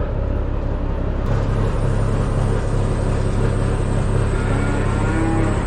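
Diesel engine of a semi truck running steadily, its pitch stepping up about a second in as the revs rise.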